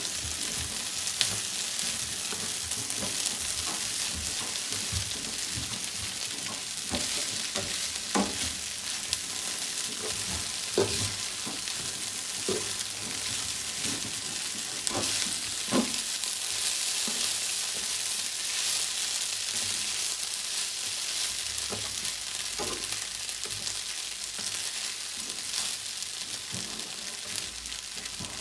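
Fried rice with prawns sizzling in a hot pan as it is stir-fried, a steady hiss with a utensil knocking and scraping against the pan every few seconds.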